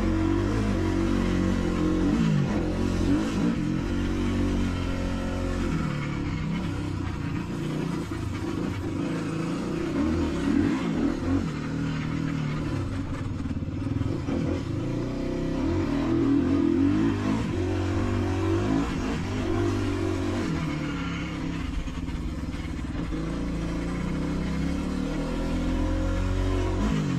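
Dirt bike engine revving up and down under way, its pitch repeatedly rising and falling with throttle and gear changes. The owner suspects a worn countershaft bearing in this bike.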